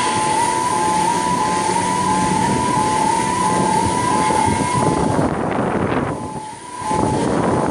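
Two-tone warning alarm sounding, alternating quickly between a high and a low note over steady loud background noise, typical of heavy lifting gear in a shipyard. It stops about five seconds in.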